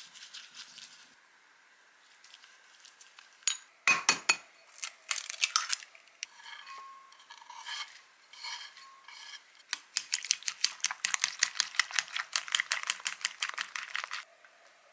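A utensil clinking against glass mixing bowls: light stirring at first, a few sharp knocks about four seconds in, then about four seconds of quick, even strokes as egg is beaten in a glass bowl, stopping suddenly.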